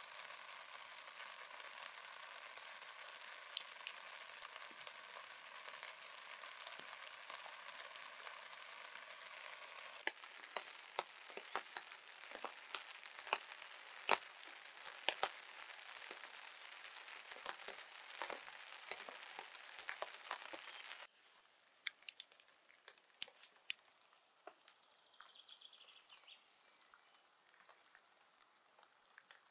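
Steady rain hissing, with many single drops tapping sharply on the tarp overhead. The hiss cuts off suddenly about two-thirds of the way through, leaving only scattered drops.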